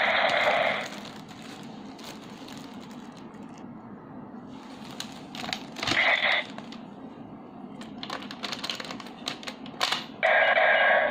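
DX Gaburevolver toy changer: the electronic sound effect from its speaker ends about a second in. Then comes a stretch of plastic clicking and handling, with a short electronic sound about six seconds in and more clicks. A loud electronic sound starts again near the end.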